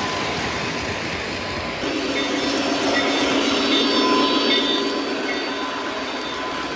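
Lionel O-gauge model trains running on three-rail track, with a steady rolling rumble of wheels and motors. About two seconds in it grows louder as a diesel locomotive pulling freight cars passes close, and faint high tones come and go above the rumble.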